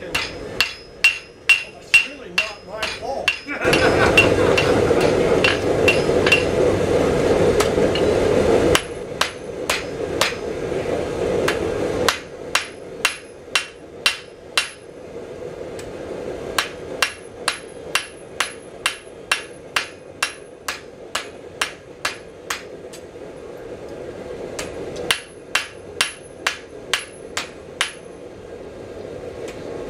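Blacksmith's hand hammer striking a hot bar held in tongs on an anvil: sharp, ringing blows about two a second, in runs broken by short pauses. Under the blows, a loud steady rushing noise starts about four seconds in and cuts off suddenly about nine seconds in.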